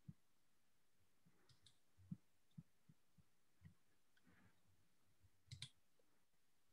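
Near silence: room tone with a few faint clicks, two of them close together and louder about five and a half seconds in, typical of computer mouse clicks.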